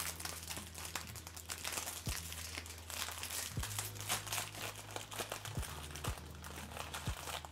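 Crinkly plastic packaging rustling and crinkling as it is handled, in many short irregular strokes with a few light clicks, over a low steady hum.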